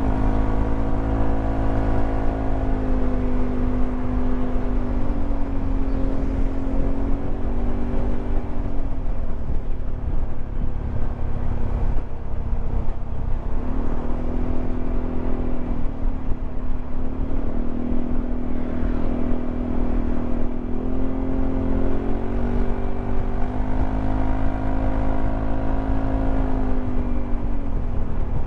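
Yamaha XMAX 300 scooter riding at road speed: heavy wind rumble on the microphone under the drone of its single-cylinder engine. The engine's pitch eases down and climbs back several times as the throttle changes.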